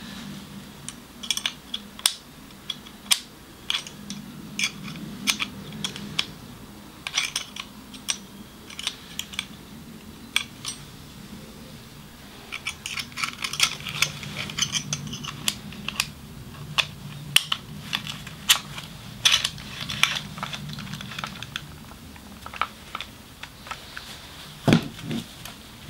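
Irregular small plastic and metal clicks and rattles from a Parkside electric nailer-stapler being worked by hand, its magazine not closing over a strip of brad nails that has jammed inside. A duller knock comes near the end.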